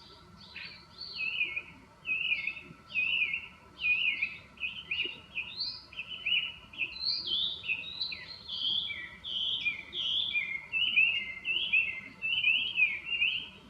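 Chinese hwamei singing: an unbroken run of loud, varied phrases, one after another, starting about half a second in.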